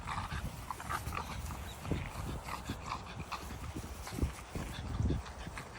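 A bulldog making a run of short, fairly high noises during the first few seconds, followed by two dull thumps.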